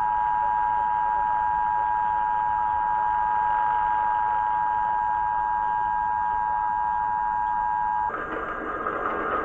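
Emergency Alert System attention signal: the two-tone alert (853 and 960 Hz sounded together), held steady for about eight seconds and then cutting off suddenly. A different, noisier sound follows in the last second or so.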